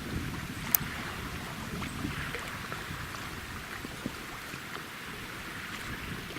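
River water splashing and rushing around a small boat under way, with wind noise, and a sharp knock about a second in.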